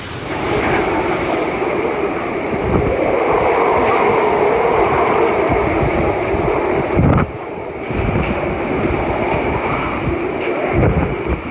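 Typhoon-force wind blowing hard and steadily, buffeting the microphone. The sound breaks off abruptly about seven seconds in, and a similar stretch of storm wind follows.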